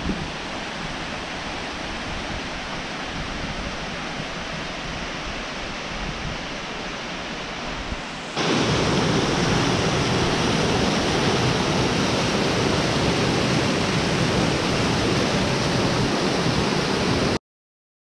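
Todtnau waterfall, water rushing and splashing down over granite rocks in a steady roar. Softer at first, it becomes suddenly much louder and fuller about eight seconds in, close to the falling water, and cuts off abruptly about a second before the end.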